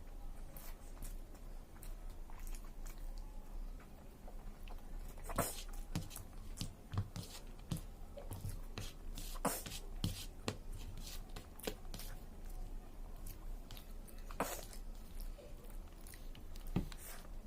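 Close-up chewing and biting of chicken biryani: irregular wet mouth clicks and smacks, with a few louder ones spread through.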